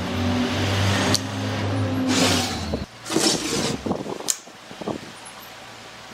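An electric power tool's motor running with a steady hum and hiss, stopping abruptly about three seconds in. A few short knocks and scraping sounds of wood being handled follow.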